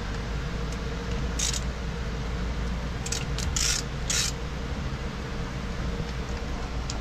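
A small hand wrench working bolts on the camshaft of a Sea-Doo Rotax engine: four short metallic clicking rasps about 1.5, 3, 3.7 and 4.2 seconds in, over a steady background hum.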